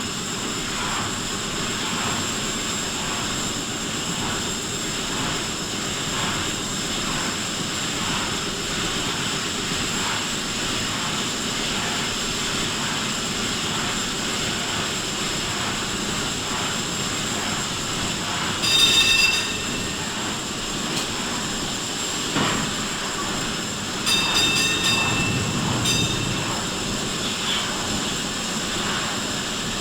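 Steady running noise of ship's machinery with a constant high whine. Short, loud high-pitched squeals come about two-thirds of the way through and again a few seconds later.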